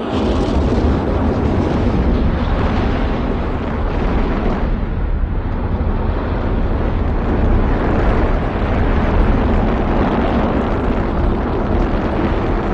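Rocket engines at liftoff: a loud, steady rumble that starts suddenly right after the countdown ends and holds at full strength.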